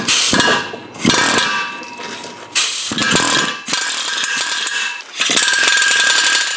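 Small impact wrench run in about five bursts of a second or so each, with a steady whine through each burst, working a rusted exhaust flange bolt.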